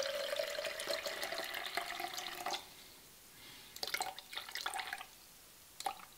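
Water poured from a glass pitcher into a plastic measuring jug: a steady stream for about two and a half seconds, its faint tone rising slightly as the jug fills, then a few short trickles and splashes as the pour is topped up.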